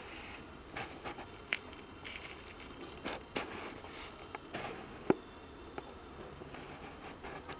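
Wand teaser toy and a kitten pawing at it: soft scattered rustles and light taps of the toy's beads and feathers on a blanket, with a sharp little click about five seconds in and another about a second and a half in.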